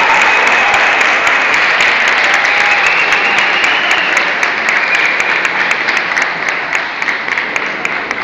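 Audience applauding and cheering, the clapping thinning out and growing quieter toward the end.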